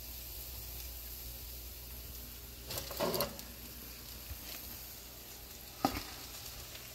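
Steady faint sizzling of freshly broiled tandoori chicken, with a brief clatter about three seconds in and one sharp knock near the end as the hot oven and tray are handled.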